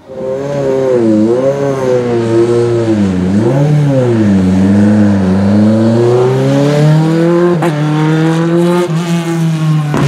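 Osella PA9 race car's Honda 2.0-litre four-cylinder VTEC engine revving hard, its pitch dipping and rising several times and then climbing steadily. Two short sharp cracks come in the second half.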